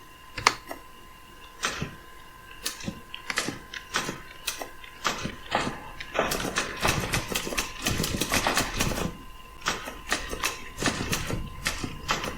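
Typewriter keystroke sounds played by the Daktilo typing-sound program, one sharp clack per key press, with its tempo-variation setting at 0.8. The strokes are sparse at first, become a fast run of typing around the middle, then thin out again.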